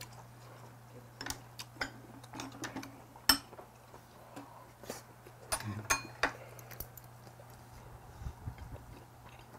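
Metal spoon and chopsticks clicking and scraping against ceramic bowls in scattered taps, the sharpest a little over three seconds in, with a faint steady low hum underneath.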